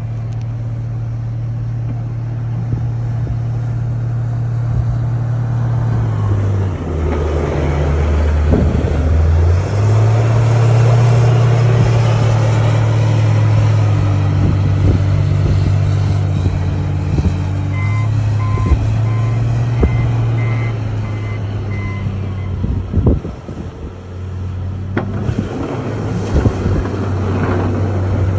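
John Deere 544K wheel loader's diesel engine running steadily; its pitch drops for a few seconds about a quarter of the way in, then comes back up. Midway, a reversing alarm beeps about twice a second for a few seconds. A few sharp knocks near the end.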